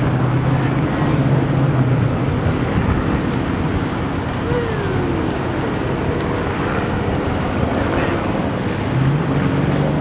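Outdoor city ambience: a steady wash of traffic and crowd chatter, with a low engine hum near the start and again near the end.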